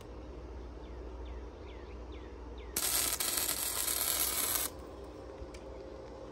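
A wire-feed welder's arc crackles and hisses for about two seconds, laying a short weld on the steel bracket, then stops abruptly.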